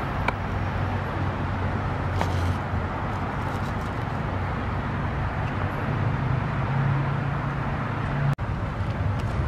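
Steady outdoor background noise with a low droning hum, and a few faint light clicks. The sound drops out for an instant near the end.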